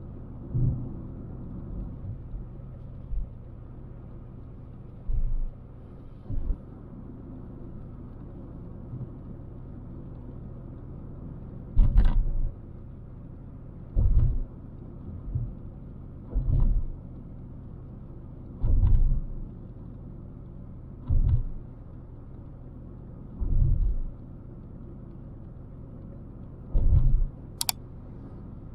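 Steady low rumble of a car driving on a city road, with dull low thumps about every two seconds from about halfway in. Two sharp clicks near the end.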